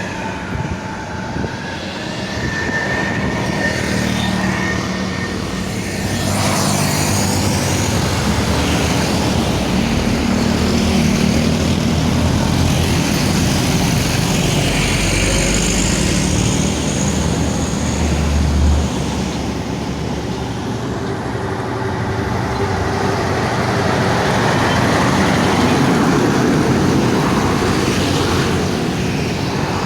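Highway traffic noise: large road vehicles passing one after another, engines and tyres swelling louder and fading as each goes by.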